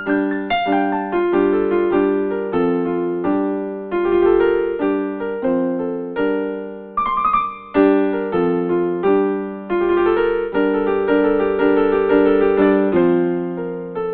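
Solo piano instrumental: a steady stream of notes over repeating chords, each one struck and then fading.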